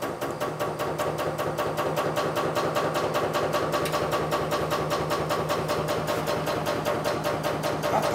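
Bandsaw running steadily with a fast, even pulse of about six beats a second over a constant hum.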